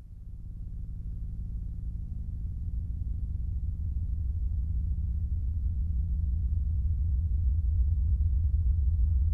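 Dark ambient music: a deep rumbling drone with a few held low tones, fading in over the first second or two and slowly growing louder.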